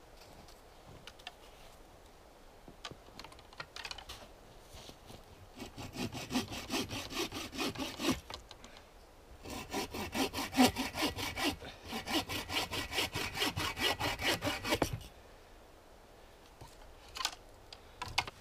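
Hand saw cutting through a wooden pole with quick back-and-forth rasping strokes, about three a second. There is a short run, a brief pause, and then a longer run that stops about fifteen seconds in.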